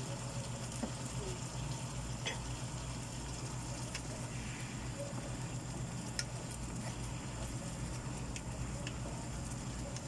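Chicken gizzards simmering and sizzling in adobo sauce in a frying pan, stirred with a wooden spatula that knocks lightly against the pan a few times. A steady low hum runs underneath.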